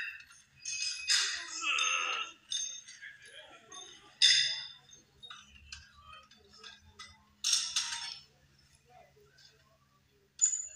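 Voices shouting in bursts and sharp metallic clinks from the loaded barbell's plates during a powerlifting squat. The sound dies down near the end.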